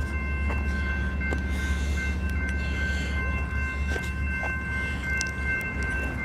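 Low rumble of an approaching train, with steady high ringing tones over it.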